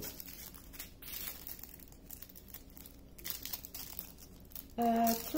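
Small plastic bags of diamond painting drills crinkling and rustling in quick crackles as they are handled. A woman hums briefly near the end.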